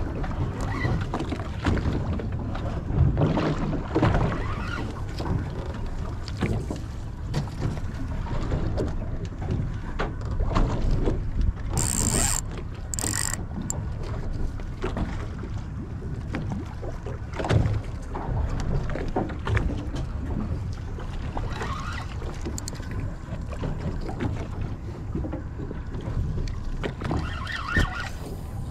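Wind on the microphone and sea noise around a small fishing boat, with scattered knocks and two short hissing bursts about twelve and thirteen seconds in.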